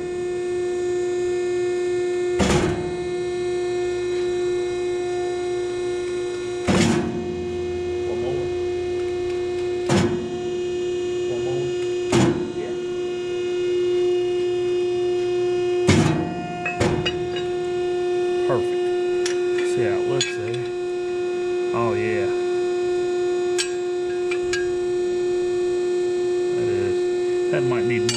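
A loud, steady electrical hum, with a sharp knock every few seconds, about half a dozen in all, from work at the bench.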